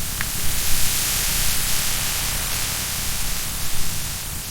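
A steady, even hiss with a low rumble under it, with no music or voices.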